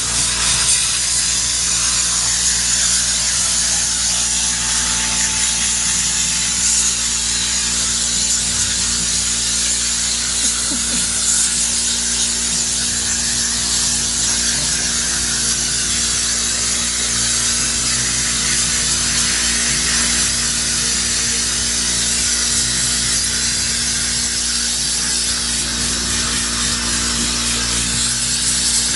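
Electric air compressor kicking on and running steadily, a loud continuous hiss over a constant low motor hum.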